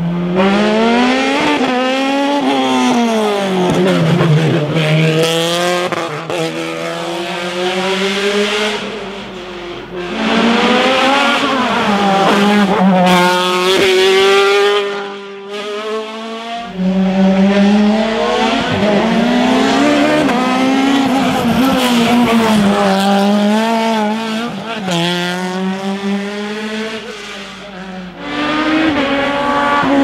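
Hillclimb racing cars, single-seaters and sports prototypes, accelerating hard through the gears in a string of separate passes. The engine note climbs in pitch through each gear and drops sharply at each shift.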